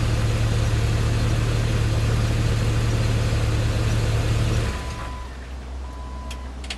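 2004 Jeep TJ engine idling steadily, then shut off about two-thirds of the way in. Right after it stops, a short steady beep starts repeating about once a second.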